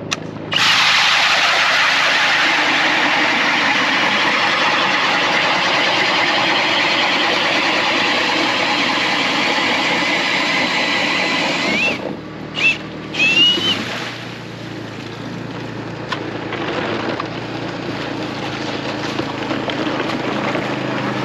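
Ice auger boring a hole through lake ice: a steady grinding that stops about twelve seconds in, followed by a few short high squeals. Then an ATV engine runs at low speed as it draws near.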